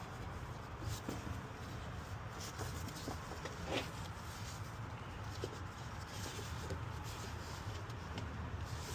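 Scattered light clicks and knocks of hand tools and metal fasteners being handled while mounting a car alternator, the sharpest about four seconds in, over a steady low hum.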